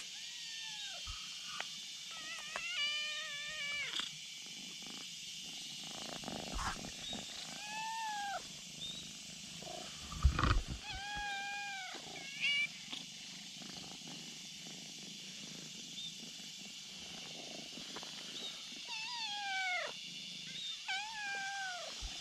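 Cats meowing: about seven short meows spread out, each rising a little and then falling in pitch. A few dull thumps from close by, the loudest about halfway in.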